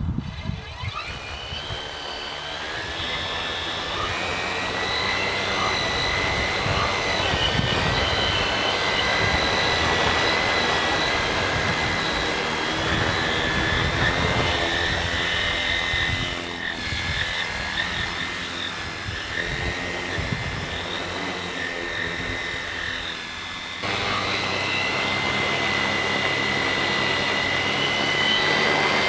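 Electric tricopter's three brushless motors and propellers running: a steady high whine at several pitches that drift as the throttle changes. It builds over the first few seconds, sags through the middle and steps up sharply again about five seconds before the end.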